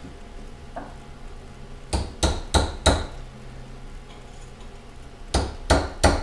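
Hammer blows on a wood block set on a Dana 44 differential carrier case, driving a Torq lunchbox locker into place: four quick blows about two seconds in, then three more near the end.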